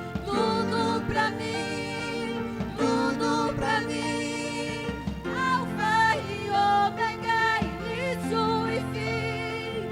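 Live worship band playing a slow song with a sung melody over held keyboard-like chords and bass notes.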